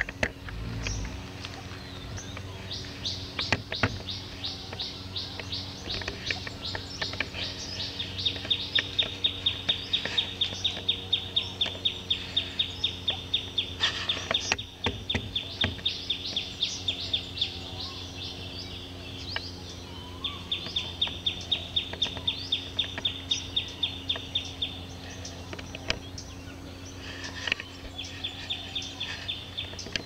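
Rapid high chirping, evenly repeated in long runs several seconds at a time, over a steady low hum.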